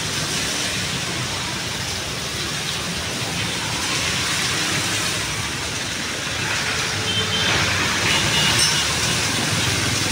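Street traffic: a steady wash of passing vehicle engines and tyres with a low engine hum.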